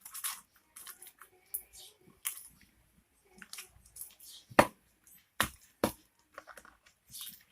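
Slime being squished and kneaded by hand, giving irregular sticky clicks and pops, with a few sharper snaps about four and a half to six seconds in.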